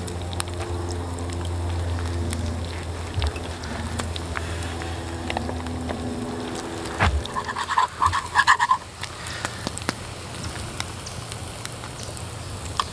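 Eggs frying in oil in a pan over a campfire: a steady sizzle with scattered pops and crackles. About seven seconds in it gives way to a spatula scraping rapidly in the pan for a second or two as the eggs are lifted out.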